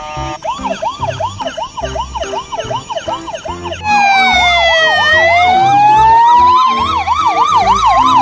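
A toy ambulance's electronic siren wailing in a fast up-and-down yelp. About four seconds in, louder real ambulance sirens take over: one slow wail that falls and then rises, layered with a fast yelp.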